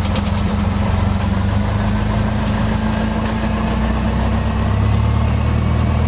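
Cessna 172's engine and propeller running steadily, heard from inside the cabin, with the deep hum growing a little louder about two-thirds of the way through.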